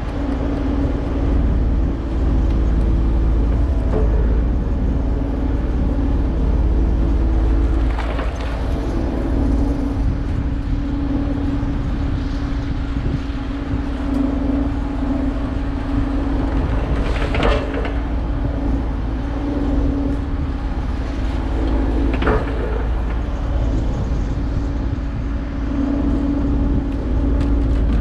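Portable generator engine running steadily, a loud constant hum over a deep rumble, with a few short knocks about a third, two thirds and four fifths of the way through.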